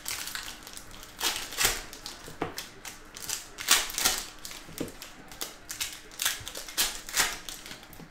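Hockey trading cards being flicked off a freshly opened pack one by one, a string of irregular crisp clicks and snaps, about two a second.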